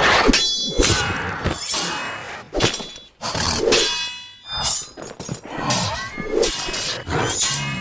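Fight sound effects: a rapid series of metal blade strikes and clangs, several ringing briefly after the hit, mixed with heavier thuds.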